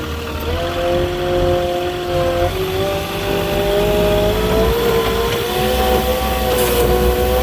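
Moffett truck-mounted forklift running and driving, its engine hum with a whine that holds steady and steps up in pitch several times.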